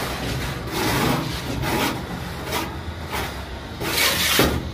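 Tool scraping over wet cement plaster on a ceiling beam while its edge is trued with a straightedge: several short scraping strokes about a second apart, the loudest near the end.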